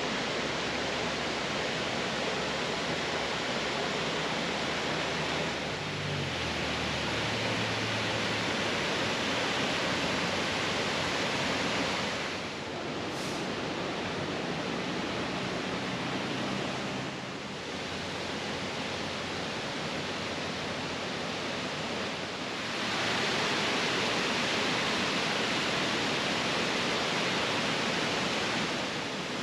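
Waterfall on Mill Creek: a steady, dense rush of falling water that dips a few times and grows louder for the last several seconds.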